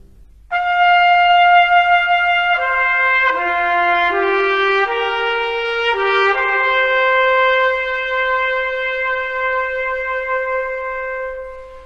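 Solo trumpet playing a slow melody: a long held note, a few shorter stepping notes, then a long held note that fades out near the end.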